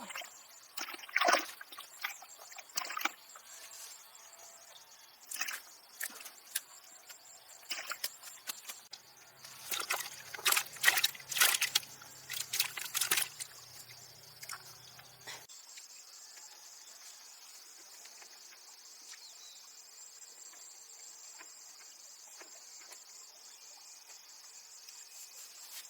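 Water splashing and trickling in irregular bursts over the first half, loudest around the middle. After that only a steady faint high-pitched hiss remains.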